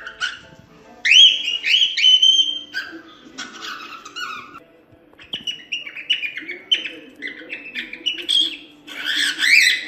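Cockatiel chirping and whistling in several bouts of short, rising notes, with the loudest calls about a second in and again near the end.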